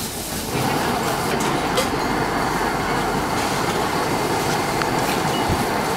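Salted king prawns sizzling in a metal casserole pot over a gas burner, with the burner's flame hissing. The hiss grows louder about half a second in, as the lid comes off, and then holds steady.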